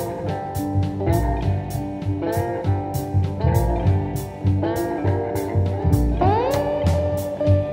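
Background music led by guitar over a steady drum beat, with a note sliding up in pitch about six seconds in.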